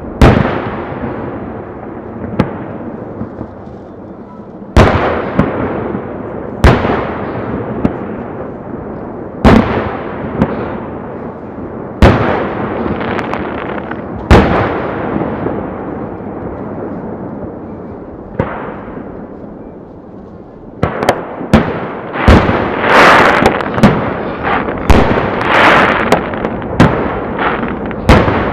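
Aerial firework shells bursting, about 450 m off: single sharp bangs every two to three seconds, each followed by a long trailing rumble. From about three-quarters of the way in comes a rapid barrage of many overlapping bursts with crackling.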